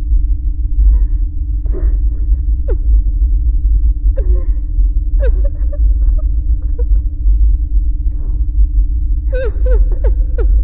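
Horror-film sound design: a loud low rumbling drone under a steady hum, with short falling squeals and crackles now and then, bunched together near the end.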